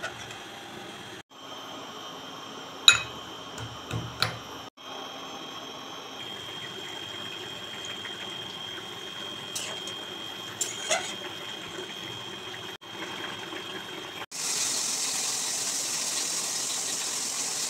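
Curry simmering in a metal wok on a gas stove: a steady hiss of bubbling liquid, with a few sharp clicks about three and four seconds in and twice around eleven seconds. Near the end the hiss becomes louder and higher.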